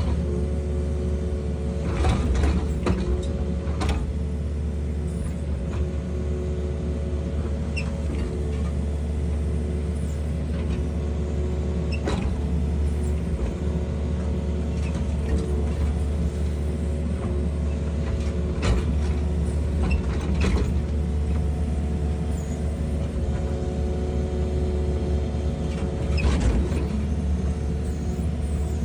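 Excavator's diesel engine running steadily, with a few sharp clanks and knocks from the machine working, about two seconds in, near four seconds, at about twelve, nineteen, twenty and twenty-six seconds.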